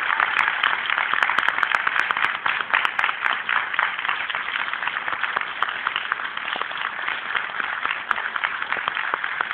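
Audience applauding: dense, steady clapping that eases a little after about four seconds.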